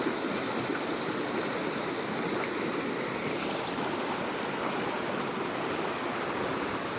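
Rain-swollen creek in flood, rushing water running steadily over the yard.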